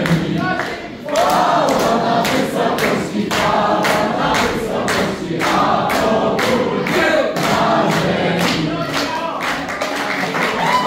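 A roomful of teenagers and a teacher singing a song together as a group, with hands clapping in time, about two claps a second.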